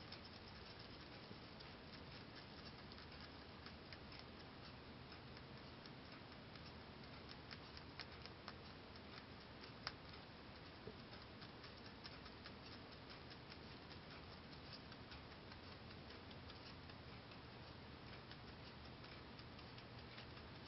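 Holland lop rabbit chewing timothy hay: a quiet, quick run of little snapping crunches, with a couple of sharper clicks about eight and ten seconds in.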